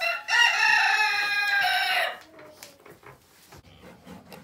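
A rooster crowing: a short note and then one long call of about two seconds whose pitch sinks at the end, followed by faint rustles and clicks.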